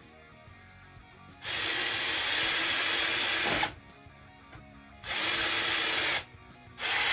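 Tramontina 10.8 V cordless drill/driver driving a large screw into wood in three runs: one of about two seconds, a short one of about a second, and a third starting near the end.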